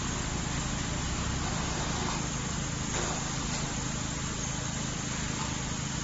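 Steady mechanical running noise with a strong low rumble and an even hiss above it, from the machinery of a wood charcoal carbonization plant.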